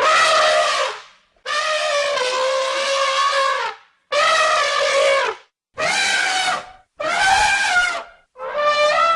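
Elephant trumpeting: about six calls in quick succession, each roughly a second long with short gaps. The longest, about two and a half seconds, sags slightly in pitch.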